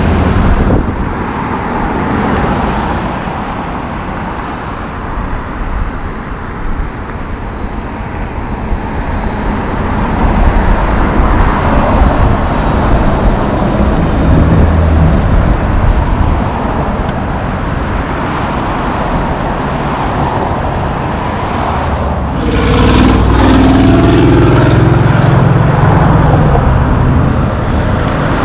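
Road traffic passing on a highway: a steady rumble of cars and trucks. A heavy truck's engine passes close and is loudest for the last several seconds.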